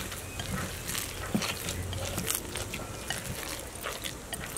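A hand squeezing and mixing a moist semolina vada batter with chopped greens in a bowl: soft squishing and scraping with scattered light clicks.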